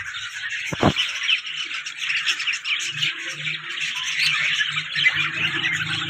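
Many caged parrots squawking and chirping at once, a dense, unbroken aviary chatter, with a single dull knock about a second in.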